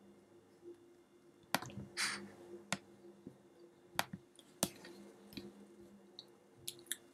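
Faint, scattered clicks of a computer mouse being worked to drag a folder between Finder windows, about six in all, with a short hiss about two seconds in, over a faint steady hum.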